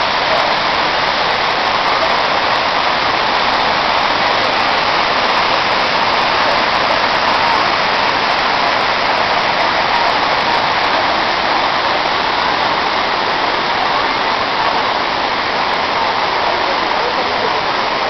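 Waterfall pouring onto rock: a steady, loud rush of falling water that does not change throughout.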